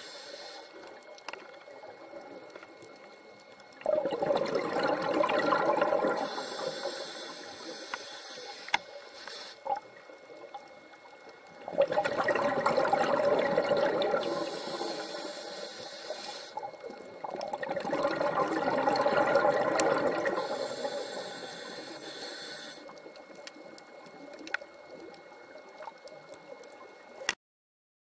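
Scuba diver breathing through a regulator underwater: a hiss on each inhalation and a bubbling gush on each exhalation, about three slow breaths. It cuts off suddenly near the end.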